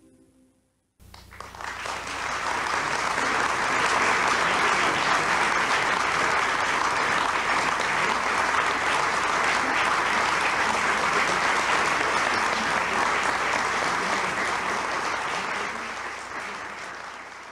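A large audience applauding. The clapping breaks out suddenly about a second in, builds to a steady ovation and fades away near the end.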